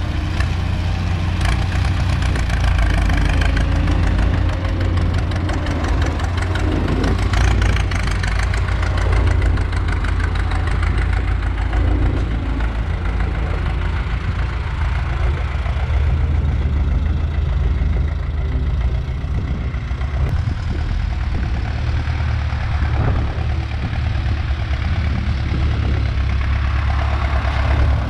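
Ford four-wheel-drive diesel tractor with a loud exhaust pipe, running under load as it pushes soil with its front dozer blade: a steady, deep engine note with a rapid exhaust beat.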